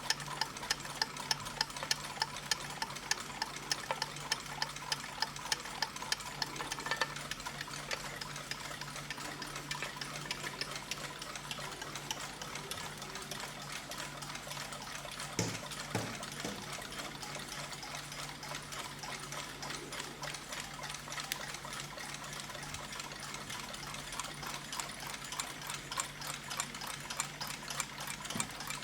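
Several mechanical clocks ticking at once, their ticks overlapping into a fast, even patter. A steady faint hum lies underneath, and there is one soft knock about halfway through.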